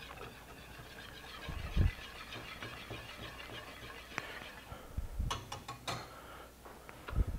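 Wire whisk stirring a cream sauce in a metal pan: faint swishing, with a few light clicks and low thumps near the middle and end.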